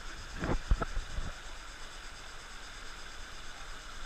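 Steady hiss of a rocky creek running over small cascades, with a few knocks and splashes in the first second as the waterproof camera comes up out of the water.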